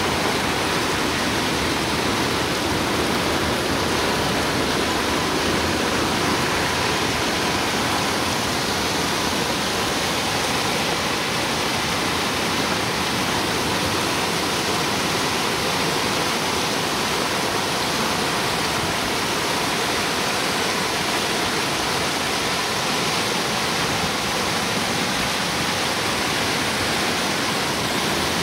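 Flooded creek of muddy water rushing and churning over its banks, a steady, unbroken sound of fast-flowing water swollen by heavy rain.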